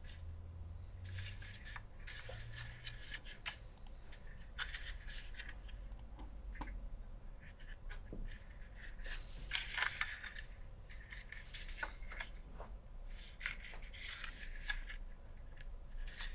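Handling noise from a Floodlight2 light-bearing holster and an orange trainer pistol being turned over and fitted together: faint rubbing and scraping with irregular small clicks, a little louder around ten seconds in.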